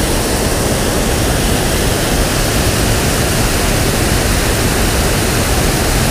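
Steady rush of water pouring over a small concrete dam spillway, a loud even noise without breaks.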